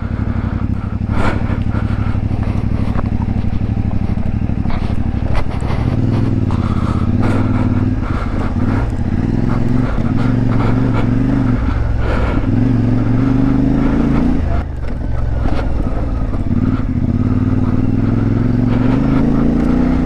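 CFMoto 450MT's parallel-twin engine running at low to middling revs under load, its note rising and falling with the throttle, with a brief drop off the throttle about three-quarters of the way through. Sharp knocks come and go throughout as the bike rides over rocky ground.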